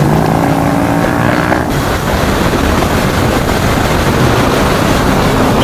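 Motorcycle on the move: a steady engine note for the first second or two, then mostly an even rush of wind noise over the microphone as it rides.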